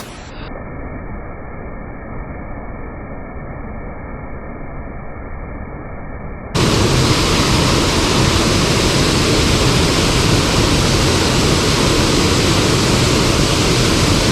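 Steady rush of water from a small waterfall pouring into a creek pool. For about the first six seconds it is muffled, with the high end cut off, then it turns suddenly louder and clear.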